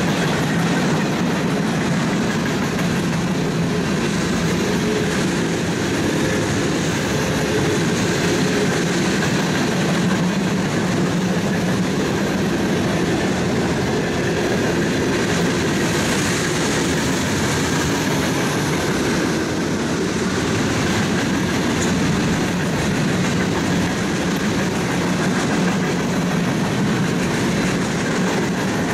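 Cars of a CSX mixed freight train (boxcars, tank cars and hoppers) rolling past close by: a loud, steady rumble of steel wheels on the rails that holds even throughout.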